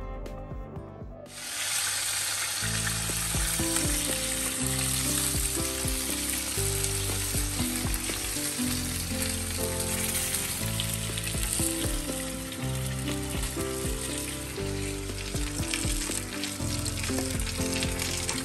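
Coconut milk sauce sizzling in a frying pan as fried chicken pieces are set into it; the sizzle starts suddenly about a second in and stays steady, over background music.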